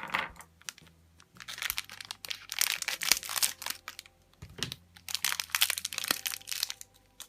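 Plastic packaging crinkling and rustling as it is handled and torn open by hand, in two bouts of irregular rustling.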